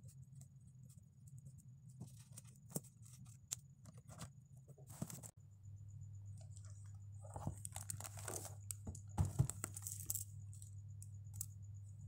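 A notebook and papers handled on a desk: rustling and scraping, with a few sharp knocks as things are set down, busiest near the middle and the loudest knock about three quarters of the way in. A steady low hum runs underneath.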